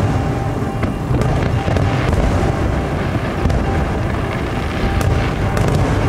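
Aerial fireworks bursting in quick succession: a continuous low booming rumble with sharp crackling pops, among them one about a second in, one about two seconds in, and one about five seconds in.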